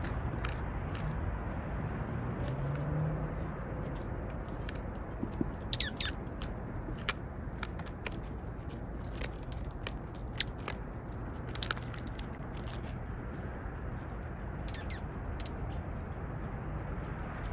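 Juncos calling: scattered sharp, high ticks, with a quick downward-sweeping "laser beam" chirp about six seconds in and a fainter one near twelve seconds, over a steady low background rumble.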